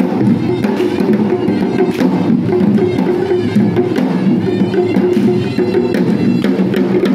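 Traditional Sri Lankan perahera drumming, a steady run of dense drum strokes under a held pitched instrumental tone.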